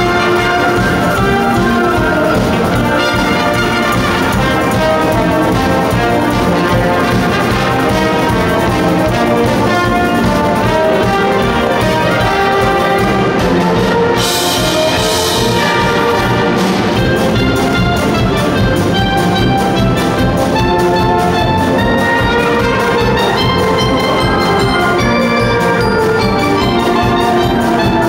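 A school wind band playing a Disney medley live, with saxophones, trumpets, trombones and sousaphones over a drum kit keeping a steady beat. A cymbal crash comes about halfway through.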